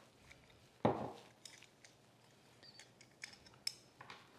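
Steel hand-plane parts being handled: a sharp knock about a second in, then scattered light metallic clicks and clinks as the cap screw joining the chip breaker to the blade is unscrewed with a screwdriver and the chip breaker is lifted off.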